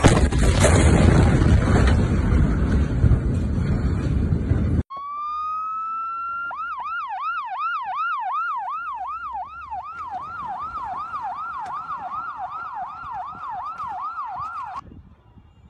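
Loud rushing noise for about five seconds, then an emergency vehicle's electronic siren: a short rising wail, then a fast yelp warbling up and down about three times a second, which cuts off suddenly near the end.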